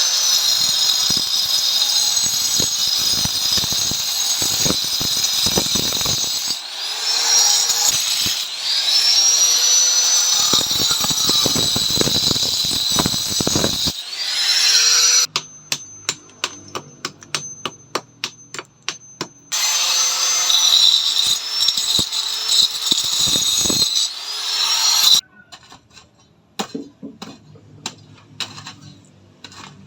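A handheld power tool running in several long spells, its high whine sliding up and down in pitch as the motor speeds up and slows down between spells. In the middle comes a stretch of quick, evenly spaced clicks. The loud running stops about 25 seconds in, leaving scattered knocks.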